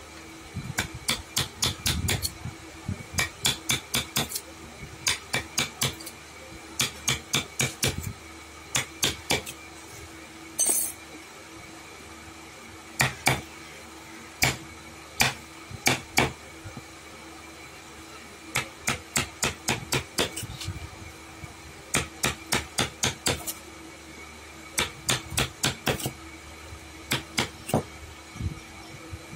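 A hammer striking in quick runs of several blows, with short pauses between the runs, over a faint steady hum.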